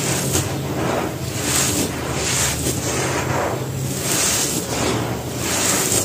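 Dry, powdery cement dust and gritty crumbs crumbled and sifted by hand on a concrete floor: a soft, gritty rustle with repeated swells as each handful is squeezed and let fall.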